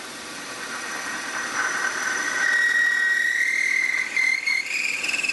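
Milling machine plunging a 5.5 mm long-series cutter, used like a drill, into a metal carburettor body. A high whistling squeal from the cutting builds from about a second and a half in, rising a little in pitch and getting louder as the cutter bites deeper.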